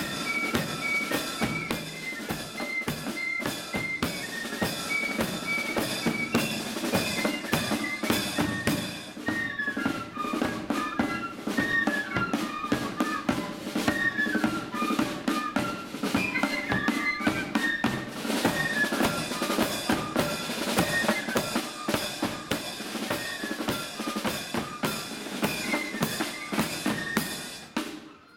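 Marching flute band playing a tune: flutes carry the melody over snare drums and a bass drum. The playing dies away just before the end.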